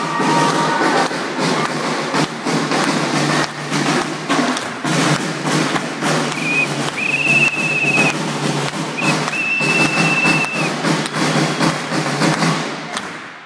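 A crowd of spectators clapping hard and thudding over loud music, with two long shrill high tones a little after the middle.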